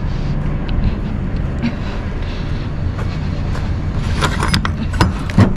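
Steady low drone of an idling truck engine. In the second half come several sharp metallic clicks and clanks, the loudest near the end, as the semi-trailer's rear door latch and lock rod are worked by hand.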